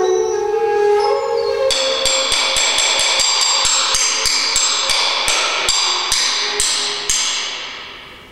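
Free-improvised music. A held pitched tone fades out in the first second and a half, then small metal percussion is struck in a quick run, about three strikes a second. Each strike rings with a bright, high shimmer, and after the last one, about seven seconds in, the ringing dies away.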